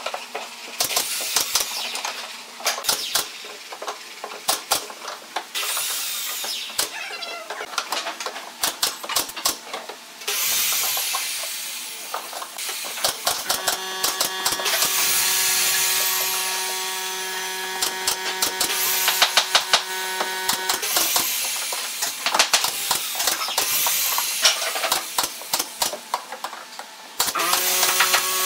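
Power drill driving screws into pine boards, its motor running in bursts of a few seconds, with many sharp clicks and knocks of wood between the bursts.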